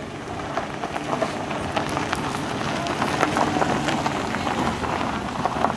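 Minivan rolling slowly over a gravel drive, its tyres crunching and popping small stones in a dense crackle that grows louder as it passes close.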